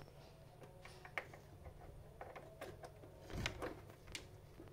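Faint clicks and rustles of a DC barrel power plug being fitted into the socket of a PDT light-therapy unit, with a soft knock about three and a half seconds in.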